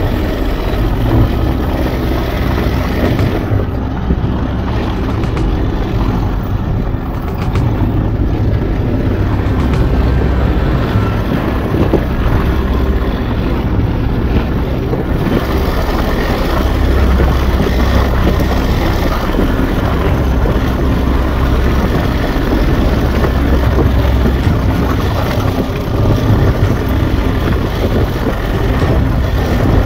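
Motorcycle engine running steadily at low speed while riding along a rough dirt track.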